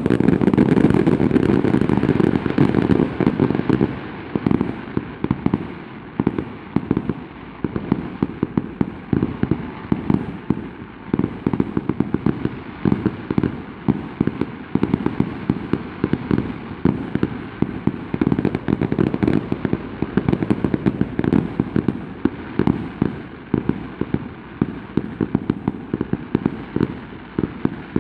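Fireworks going off in a dense barrage of rapid bangs and crackles, loudest and thickest in the first few seconds, then continuing as a fast, irregular stream of reports.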